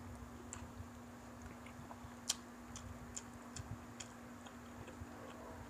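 Eating sounds of people chewing fried chicken with their hands: soft chewing and scattered mouth clicks, with one sharper click a little over two seconds in. A steady low hum sits underneath.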